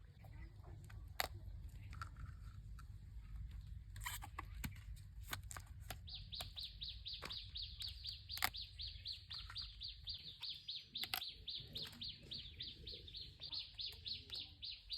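A bird chirping in a rapid, even series of high notes, a few a second, starting about six seconds in and going on steadily, over scattered sharp clicks and taps.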